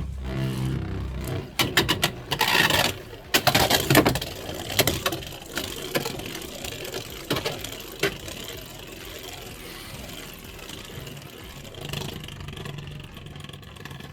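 Beyblade X spinning top in a plastic stadium, with its Turbo bit's gimmick working. A dense run of sharp clicks and rattling from about a second and a half in to about five seconds, as it strikes and grinds along the stadium wall, then a softer steady whir with occasional clicks as it keeps spinning.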